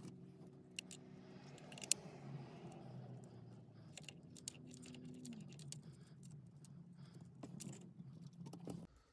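Small clicks and rustles of plastic wiring-harness plugs and cables being handled and pushed together, with a few sharper clicks. Faint steady low tones run underneath and cut off near the end.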